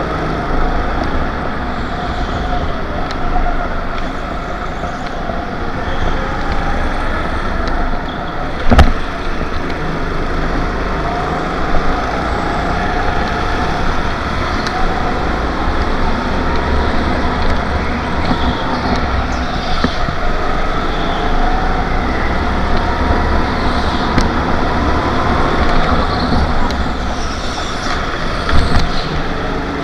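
Onboard sound of an indoor rental kart racing: its engine runs hard, pitch rising and falling with the throttle through the corners, over a low rumble, with other karts close by. A single sharp knock about nine seconds in is the loudest moment.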